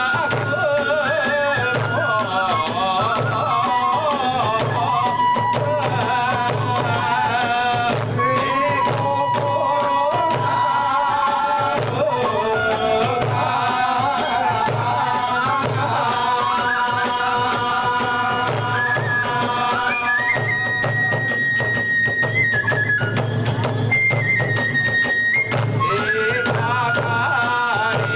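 Hiroshima kagura hayashi playing for the dance: a bamboo flute melody, rising to high held notes in the second half, over steady taiko drum beats and continually clashing hand cymbals.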